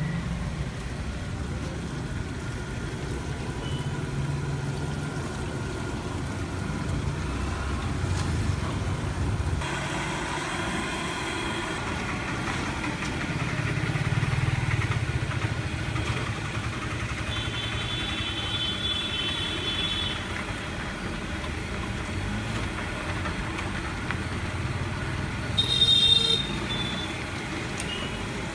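Steady street traffic noise, with vehicle engines running on the road. A high ringing tone sounds for about two seconds two-thirds of the way through, and a louder, brief one comes near the end.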